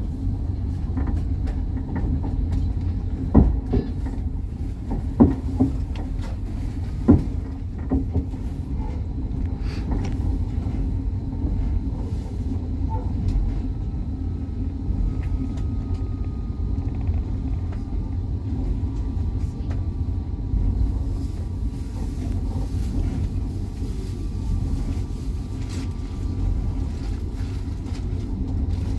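Train running along the track, heard from on board: a steady low rumble, with three sharp knocks of the wheels a few seconds in and fainter clicks later.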